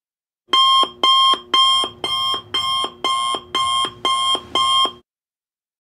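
Electronic alarm-clock style alert beeping about nine times, roughly two beeps a second, then cutting off about five seconds in. It signals that the ten minutes of the timer are up.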